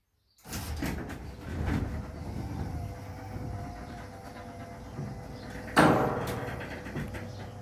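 Electric garage door running on its motor with a steady hum. A loud clunk comes about six seconds in.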